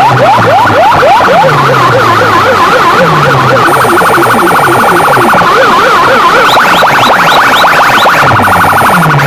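Electronic siren effects played very loud through a DJ sound system: quick repeated rising whoops, then a fast warbling wail, then rising whoops again near the end, over falling bass sweeps that repeat under it.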